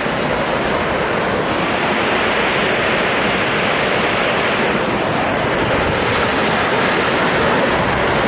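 Steady rushing of flowing jungle river water, with the hiss growing brighter for a few seconds in the middle.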